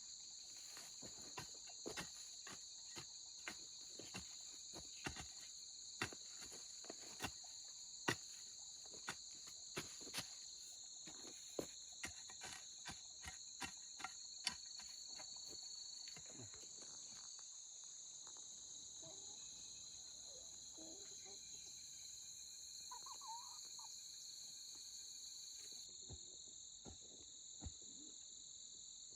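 A steady, high insect chorus, with short clicks or knocks at irregular intervals through the first half, fading to a few near the end.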